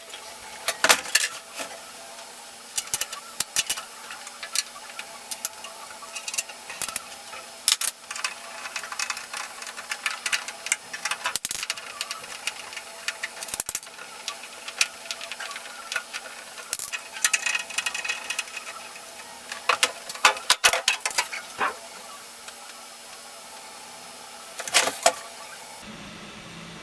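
Irregular clicks, taps and rattles of tools and metal parts being handled as a microwave oven is taken apart for repair, with a faint steady hum underneath.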